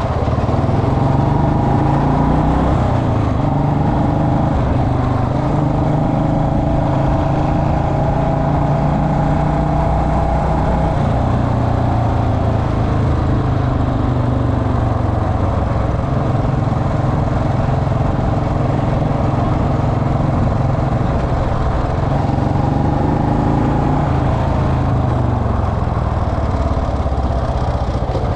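Royal Enfield Bullet Electra's single-cylinder engine running while the motorcycle is ridden. The engine note shifts up and down in pitch several times as the throttle changes, rising near the end.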